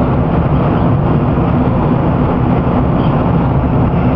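Steady road and engine noise heard from inside the cabin of a moving vehicle, with a low drone.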